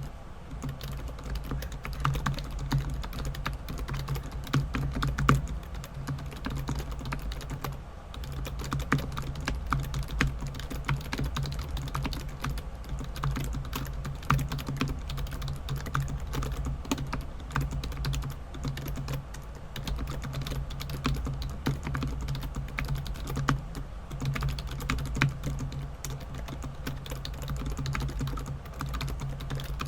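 Rapoo 8200p wireless keyboard being typed on at speed, a fast continuous clatter of key presses with a brief lull about eight seconds in. A steady low hum runs underneath.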